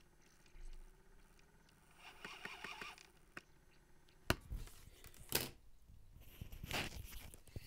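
Panasonic SJ-MJ78 MiniDisc player's mechanism heard close to a microphone: a short faint whirring, then two sharp clicks about a second apart and a brief rustling burst. The owner takes it for a player that cannot seek properly.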